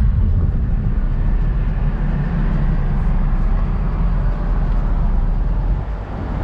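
A car driving on the road: steady, loud road and wind rumble heard from the hired convertible Ford Mustang, with the most energy in the deep low end and a slight dip near the end.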